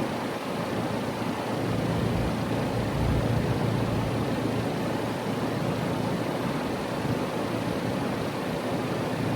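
Outdoor unit of a 3-ton Trane XR14 heat pump running steadily: the condenser fan's rush of air over the compressor's hum.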